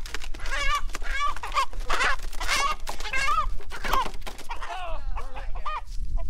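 A chicken squawking repeatedly in short wavering calls, with wing-flapping rustles, as it is held upside down and put head-first into a killing cone before slaughter.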